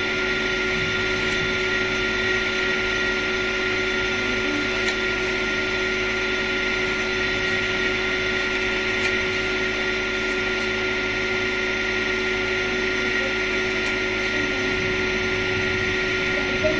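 A steady hum with several fixed tones over a haze, like a motor or fan running, with a few faint clicks as a hand-press vegetable chopper is worked.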